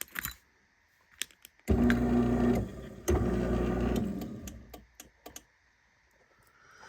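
Craftsman chain-drive garage door opener during a safety-sensor check: a relay click, then its motor hums for about a second, stops, clicks and starts again about three seconds in before winding down, with a few light clicks afterwards.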